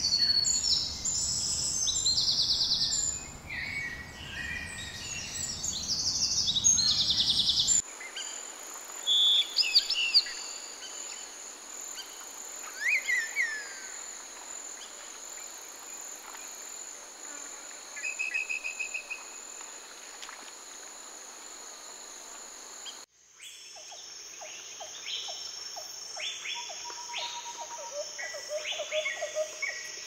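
Tropical forest ambience: several birds calling, chirping and trilling over a steady high-pitched insect drone. The mix changes abruptly twice, about 8 and 23 seconds in, as one recording gives way to another.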